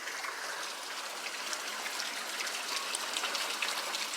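Heavy rain pouring down: a steady hiss with scattered drop ticks.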